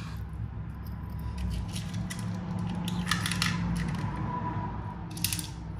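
A few light metal clicks and clinks from a hex screwdriver and small bolts being handled, over a steady low hum.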